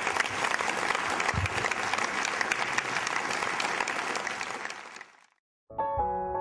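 Audience applauding, many hands clapping together, fading out about five seconds in. After a brief gap, music begins near the end.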